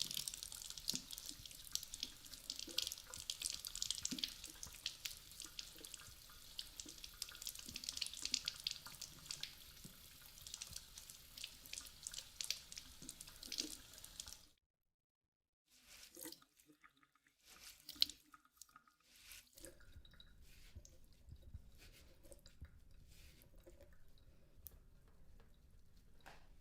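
Splashing, running water with crackles. It stops suddenly about fourteen seconds in, and after a short silence scattered small drips and clicks follow.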